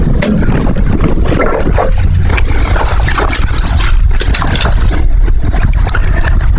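A leashed young cur-mix dog moving about and scuffling on dry leaves, over a steady low rumble.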